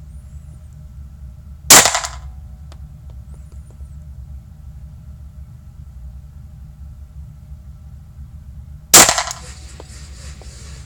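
Two Glock pistol shots, about seven seconds apart, each a sharp crack with a short echo off the walls of an enclosed indoor range, over a steady low hum.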